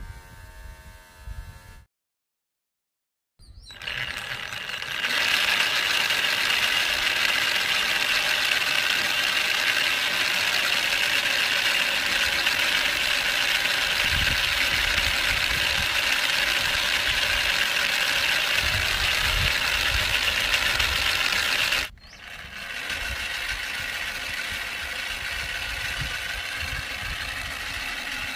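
775 DC motor spinning the gear train of a homemade radial-style engine model, running with a steady whir. It starts about three and a half seconds in, comes up to full speed within about a second, and about 22 seconds in it drops to a quieter steady run.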